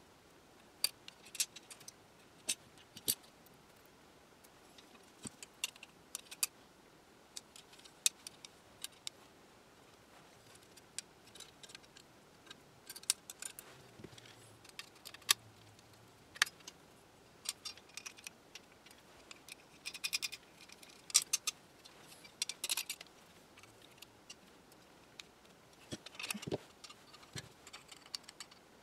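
Small metal hardware and hand tools clicking and clinking as nuts, screws and wire leads are fitted to a radio terminal strip. The clicks are light and irregular, in busier clusters near the middle and again near the end.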